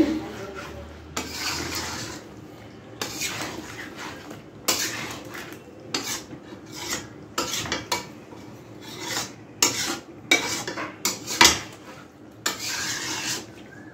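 Metal spatula stirring a thick chicken-and-potato masala in a metal kadai, scraping and knocking against the pan in irregular strokes, with a sharper knock about eleven and a half seconds in.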